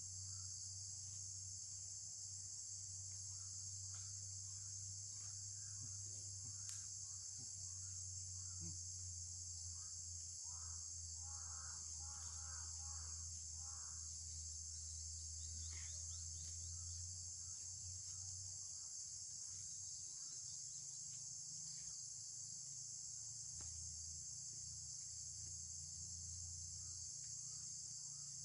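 Steady, high-pitched insect chorus, unbroken throughout, over a faint low hum.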